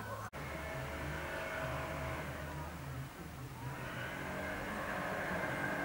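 A motor vehicle's engine running steadily, becoming a little louder in the second half.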